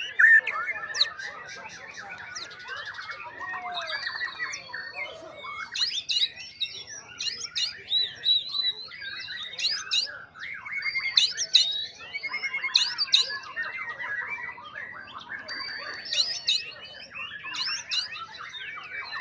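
White-rumped shama (murai batu) singing a full, varied song of rapid whistles, trills and sharp notes, in the full-on singing contest breeders call 'bongkar'.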